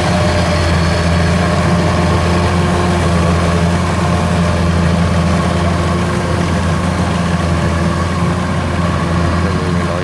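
Kubota DC-93 combine harvester's diesel engine and threshing machinery running steadily under load as it cuts rice, a continuous low drone.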